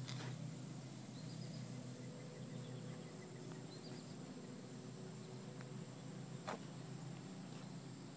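Faint outdoor background: a steady low hum and a steady high buzz, with a few faint chirps and two sharp clicks, one at the start and one about six and a half seconds in.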